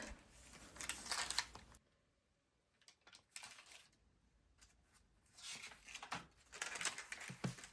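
Sketchbook pages being handled and turned: faint, short paper rustles and light clicks, with quiet gaps between them.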